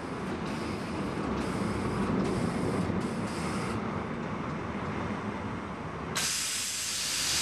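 A Budapest HÉV MIXA-series suburban electric train runs along the platform with a steady rumble of wheels on rail. About six seconds in, a sudden steady hiss takes over.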